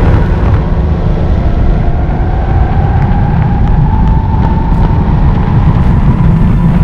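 Go-kart engine running at speed on the straight, its note rising slowly as the kart accelerates, over a heavy low rumble, heard from the onboard camera.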